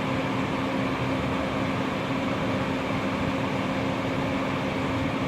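Steady machine hum with a constant low drone, unchanging throughout.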